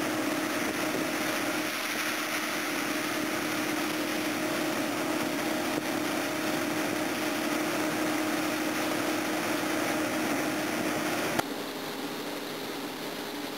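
Combine harvester running steadily as its unloading auger empties shelled maize into a grain trailer. A little before the end, the sound cuts abruptly to a quieter steady hum.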